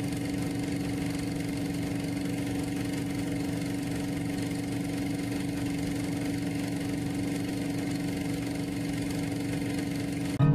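A motor running steadily at an unchanging pitch, cut off abruptly near the end.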